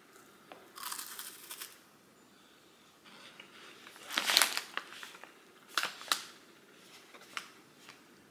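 Crinkling and crunching from a pack of small lemon-filled wafers being handled and tasted, in three short bursts, the loudest about four seconds in.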